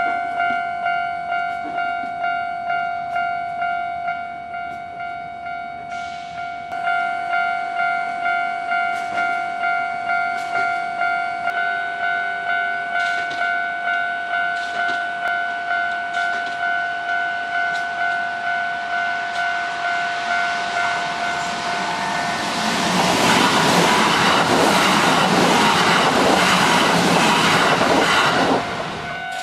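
Japanese level-crossing warning bell ringing in a fast, even repeating ding, with a Kintetsu Osaka Line electric train passing over the crossing about three-quarters of the way through. For about six seconds its wheels clatter loudly over the rails and drown out the bell, and the bell carries on ringing after the train has gone.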